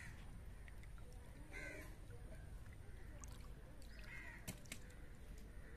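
A crow cawing faintly twice, about two seconds apart, with a single sharp click just after the second call.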